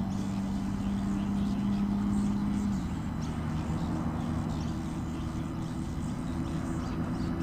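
An engine running steadily with a low hum that drops in pitch about three seconds in.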